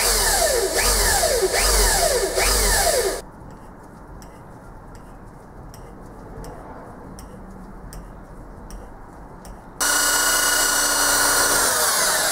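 Cordless drill running under load into metal in two bursts: about three seconds with a wavering pitch at the start, then a steadier run from about ten seconds in, with faint ticking in the pause between.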